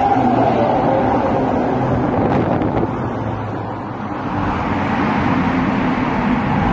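A car driving at speed, heard from inside the cabin: a steady rush of road and wind noise with a low engine drone under it, dipping briefly about halfway and then rising again.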